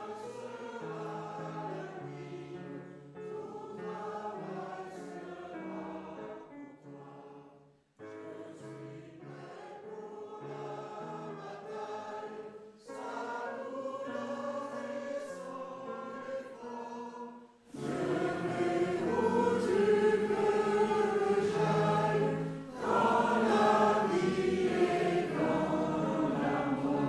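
Congregation singing a hymn together in held, slow-moving notes. The singing breaks off briefly about eight seconds in, then comes back; from about eighteen seconds in it is suddenly louder and fuller.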